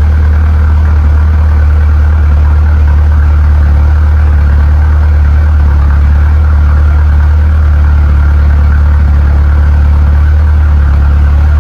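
A 2.3-litre turbocharged four-cylinder engine idling steadily, with an even low drone that does not change.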